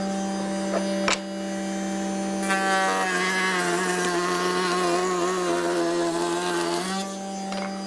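Router in a router table spinning a stile-and-rail bit, running steadily. From about two and a half seconds in to about seven seconds a piece of wood is fed through the cutter: the motor's pitch sags and wavers under load and a rough cutting noise joins, then it returns to free-running. A sharp click about a second in.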